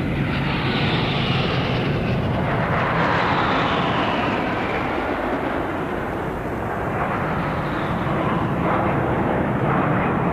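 Formation of military jet aircraft flying over; the rushing engine noise sweeps down in pitch as they pass.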